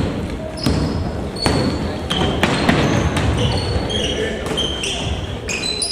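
Basketball game on an indoor court: a ball bouncing on the hardwood, with short, high sneaker squeaks from players moving and players' voices, echoing in the hall.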